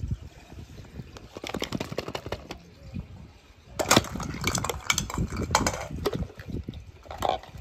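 Hollow plastic toy eggs being handled on a stone floor: a string of light plastic clicks and knocks, the loudest about four seconds in, with more knocking near the end.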